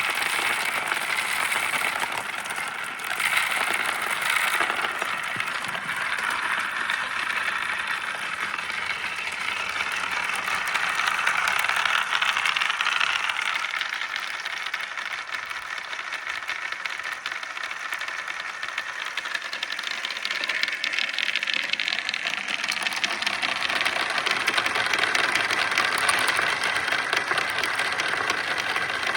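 Many glass marbles rolling and clattering down marble-run slopes: a continuous dense rattle of small clicks that swells and eases without stopping.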